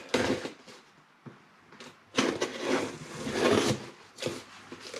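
Packing tape on a cardboard shipping box being cut and the box handled: scraping and rustling, with a quieter gap and a couple of small clicks in the first two seconds, then a longer stretch of scraping and rustling.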